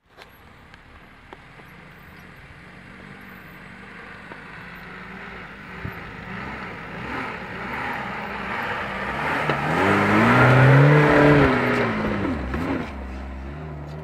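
Lada Niva 4x4 driving up over rough ground, its engine growing steadily louder and rising in pitch as it passes close by about ten seconds in, then dropping in pitch and fading.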